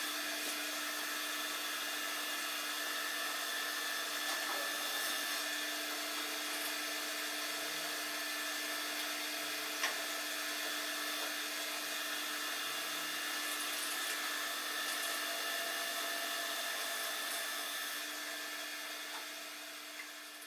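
Wood lathe motor running steadily with a constant hum while a paper towel buffs friction polish onto the spinning wooden bowl. It fades out near the end.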